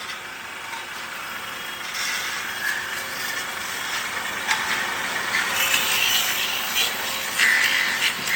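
Tools scraping and grinding on a sheet-metal cooking pot: a continuous rasping noise that grows louder, with a few sharper scrapes near the end.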